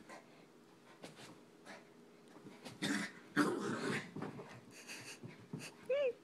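Small dog playing with a rubber Kong toy, making a few short breathy huffs, then one brief whimper that rises and falls near the end.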